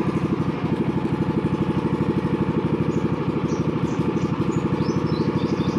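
A small engine running steadily at idle with an even, rapid beat.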